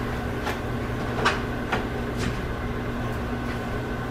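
Steady electrical hum of a running kitchen appliance, with a handful of light clicks and taps scattered through.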